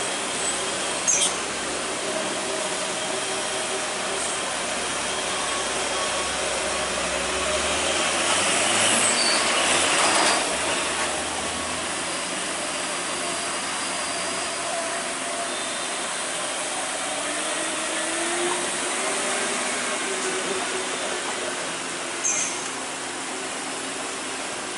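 Heavy rain hissing steadily on a wet road, with trucks and cars running past on the wet surface; one vehicle passes louder about eight to ten seconds in.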